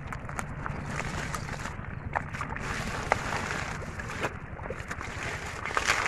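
Wet mud squelching and muddy water splashing as hands and legs work through a mud bed and pull at water hyacinth, with irregular crackles and clicks and a louder cluster near the end.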